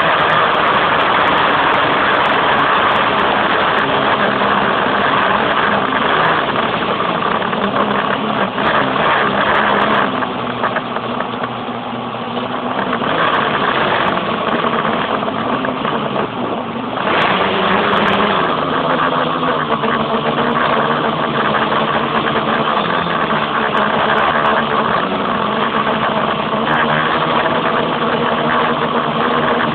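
Quadcopter's electric motors and propellers running in flight, heard through an old HTC Dream phone's microphone. It is a loud, steady buzz with several pitches that shift up and down as the throttle changes. It eases off for a few seconds about a third of the way in, dips again briefly, then comes back up.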